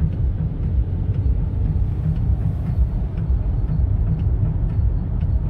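Steady low rumble of a car's road and engine noise, heard from inside the moving car.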